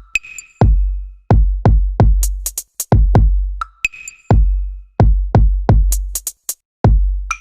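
Background electronic music with a drum-machine beat: deep bass-drum kicks and sharp high ticks in a steady rhythm.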